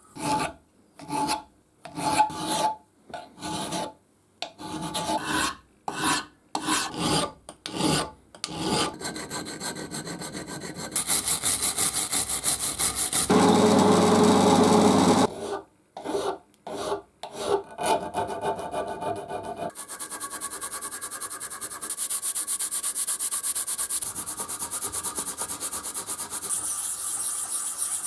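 Steel parts being worked by hand. First comes a run of separate rasping strokes, then steady fast rubbing. About 13 seconds in, a drill press runs for about two seconds with a small steel gear held under it. In the last stretch, an oilstone is rubbed quickly back and forth on a steel shaft.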